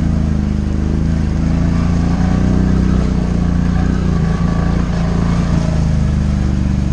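ATV engine running at steady low revs while the quad wades through a shallow, rocky river, with water splashing and rushing around the front wheels.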